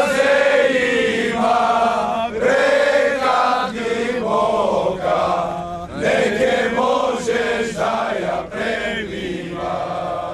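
A large group of young women singing together in unison, phrase after phrase of long held, bending notes.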